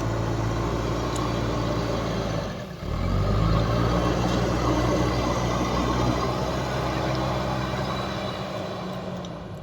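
Heavy diesel engine of construction machinery or a truck running steadily; it drops away briefly just under three seconds in, then comes back louder.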